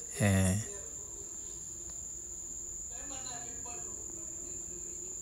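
Steady high-pitched trilling of insects, held without a break, over faint street ambience. A man's voice says something brief right at the start.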